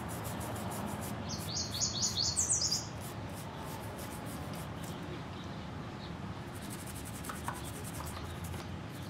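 A bird sings a quick phrase of about six rising chirps, starting about a second in and lasting just over a second. Under it runs faint, repeated rubbing as hands scrub grime off a motorcycle's speedometer gear housing with kerosene.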